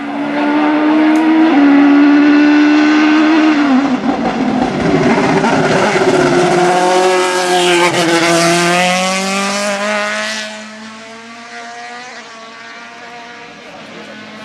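Racing car engine at high revs going past close by, its note stepping with gear changes and sweeping down in pitch as it passes about eight seconds in, then quieter from about ten seconds as it pulls away.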